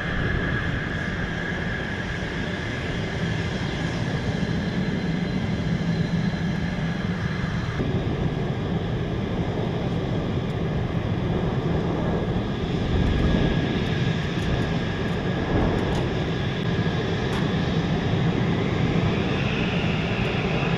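F-16 jet engine running at idle on the flightline: a steady rumble with a high steady whine over it.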